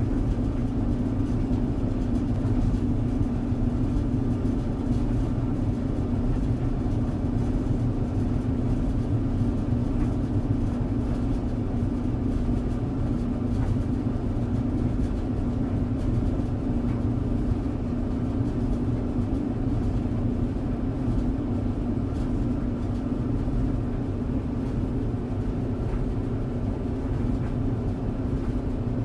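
Tumble clothes dryer running: a steady, even hum and low rumble with no change in level.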